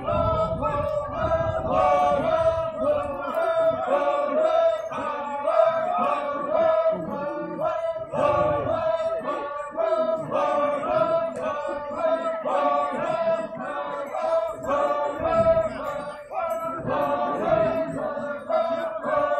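A group of Ao Naga performers chanting together in unison, repeating a short phrase in a steady rhythm: a traditional harvest and threshing work chant.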